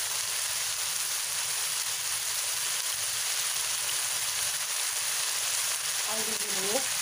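Shredded chicken in chili paste frying in hot oil in a wok, a steady sizzle.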